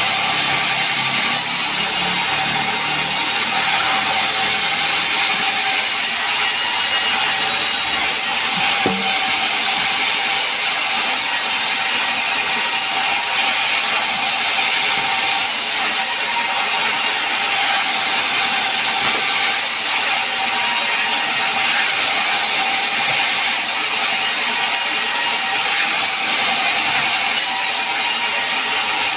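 Sawmill machinery running steadily: a loud, constant mechanical noise with a faint steady hum, without pauses or changes.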